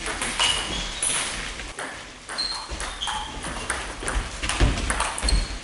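Table tennis balls clicking off bats and tables in quick, irregular succession, some hits with a short high ping, from more than one table in play. A few dull thuds come near the end.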